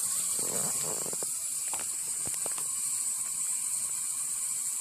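Tap water running into a glass jar in a kitchen sink, a steady hiss. A few light clinks and knocks of the glass come about one to two and a half seconds in.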